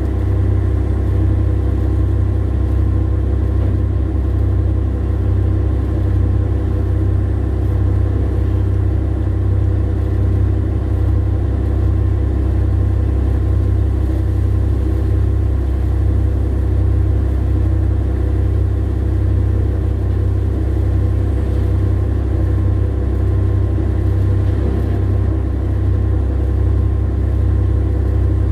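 Heavy diesel engine running with a deep, steady drone, heard from inside a vehicle cab.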